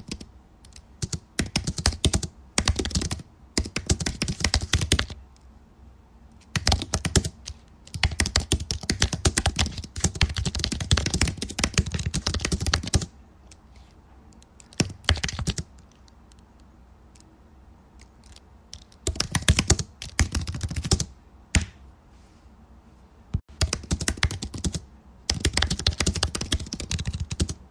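Computer keyboard typing in fast runs of keystrokes, broken by pauses of a few seconds between runs.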